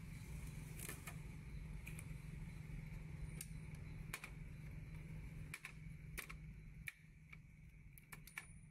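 Scattered light plastic clicks and taps as the Epson L3250 printer's trays and covers are handled and its blue shipping tape is pulled off, a dozen or so irregular clicks over a steady low hum.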